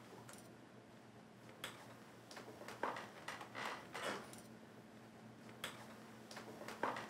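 Faint, irregular clicks, creaks and rustles of people settling into wooden chairs and shifting about, over a low steady room hum.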